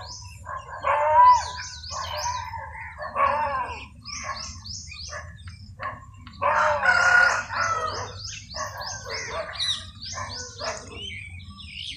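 Chickens calling, with a rooster crowing loudest about six and a half seconds in, over quick high chirps of small birds repeating in short runs.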